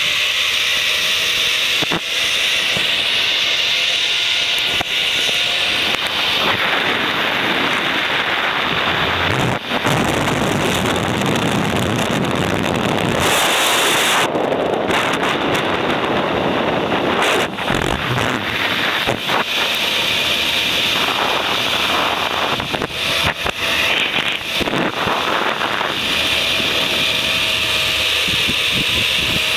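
Wind rushing hard over the microphone of a camera carried down a fast zipline ride. A faint steady whine from the trolley running on the cable shows at the start and again near the end.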